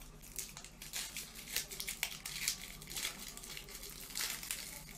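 Foil Pokémon booster pack wrapper crinkling as it is handled and the cards are worked out of it, in quick irregular crackles.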